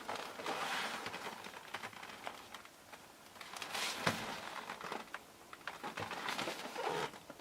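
A cardboard product box being handled and turned over: soft rustling and crinkling, with a couple of light knocks about four and six seconds in.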